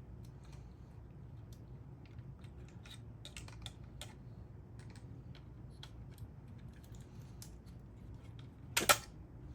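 Small plastic clicks and taps as wires and parts are fitted back into a Dyson V10 stick vacuum's body, with one louder clack near the end.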